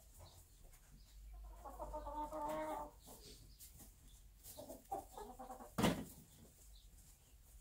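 Bantam hen in a nest box clucking: one drawn-out call about a second and a half in, then a few shorter calls. A single sharp knock just before the end is the loudest sound.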